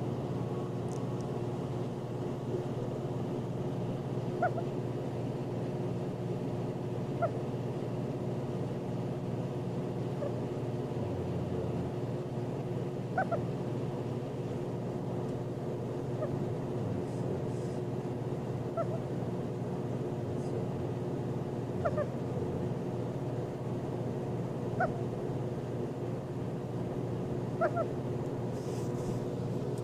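A sleeping puppy snoring, with short, faint whistling squeaks every few seconds over a steady low hum.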